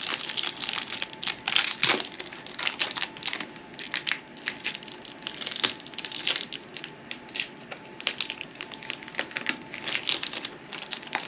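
Foil wrapper of a Pokémon card booster pack crinkling and crackling as it is opened and handled, a dense run of irregular crackles.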